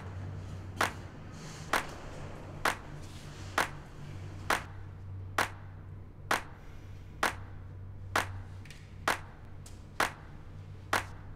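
Sharp, evenly spaced clicks, a little under one a second, over a low steady drone.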